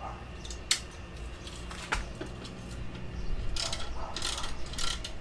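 Small metal clicks and rattling of license-plate mounting hardware being fastened to a motorcycle's tail bracket. A couple of single clicks come first, then quick bunches of clicks from about halfway through.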